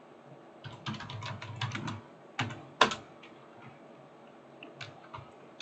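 Typing on a computer keyboard: a quick run of keystrokes, two sharper key presses a moment later, then a few single keys near the end.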